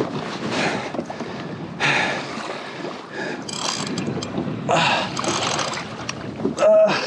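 Wind buffeting the microphone and water sloshing against a kayak's hull, in uneven gusts, with a few light clicks in the middle. Just before the end comes a short, loud pitched sound.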